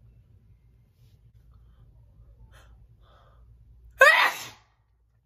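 A woman sneezing: faint breaths, then one short, loud voiced sneeze about four seconds in.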